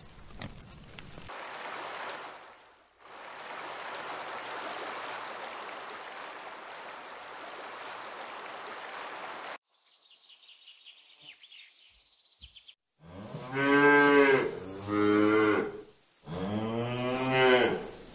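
A cow moos three times near the end, loud long low calls that each rise and fall in pitch. Before that there is a steady hiss lasting several seconds, then a few faint high bird chirps.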